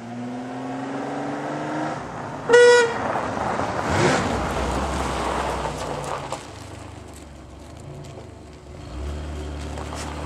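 1990 Chevrolet Lumina's engine revving up as it approaches, then a short horn honk about two and a half seconds in, the loudest sound. Tyres then slide and spray gravel as the car skids around on the loose surface, its engine running on.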